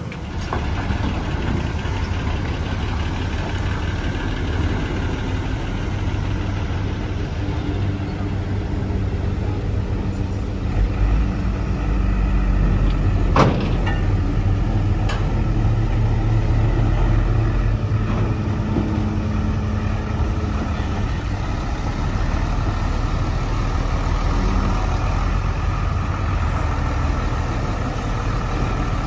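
Heavy diesel truck engine running steadily as a fully loaded sugarcane truck moves, with a deeper rumble building about eleven seconds in. A single sharp knock comes about halfway through.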